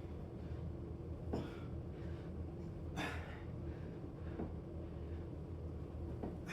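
A person breathing hard through a set of pull-ups, with a few sharp exhales at uneven gaps, over a steady low background hum.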